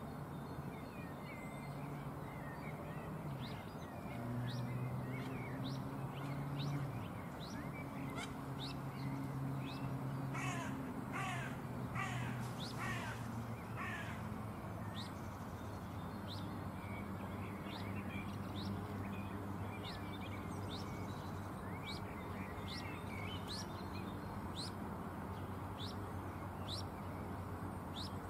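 Birds calling outdoors: short, sharp whistled notes keep coming throughout, and a run of about six harsh, crow-like calls sounds in the middle. A low steady hum lies underneath.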